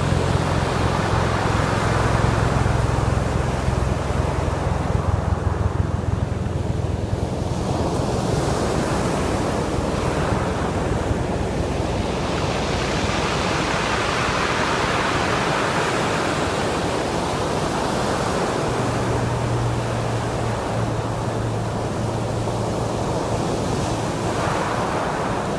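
Low-tide ocean surf washing up a rocky beach: a steady rushing hiss that swells three times as waves come in, with a low rumble at the start and again in the second half.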